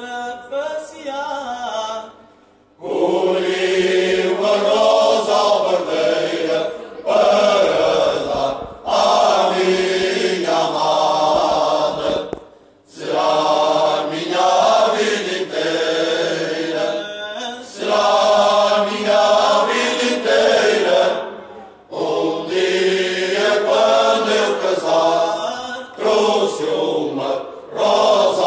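Male choir singing cante alentejano, the slow unaccompanied Portuguese polyphonic song. A thinner opening line gives way about three seconds in to the full choir, which sings long, slow phrases with brief pauses for breath between them.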